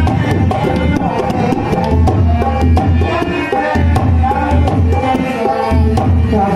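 Instrumental Indian folk music: a harmonium plays a reedy melody over hand-drum accompaniment, with deep bass strokes coming in repeated patterns and sharp slaps on top.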